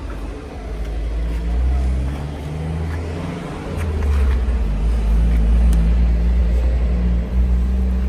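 Heavy truck engine running with a deep low hum and a shifting pitch, growing louder about four seconds in.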